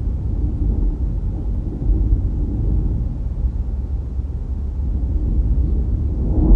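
Steady low rumble of a car driving on the road: road, engine and wind noise.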